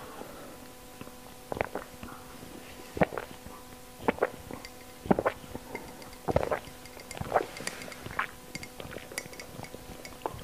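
A person gulping down raw quail eggs from a glass mug, in separate swallows about once a second.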